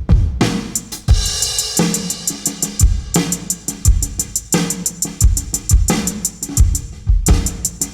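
Electronic drum sounds from a drum trigger playing a pop-style beat: deep kick drum hits, snare, and quick steady hi-hat ticks, with a held pitched tone about two seconds in.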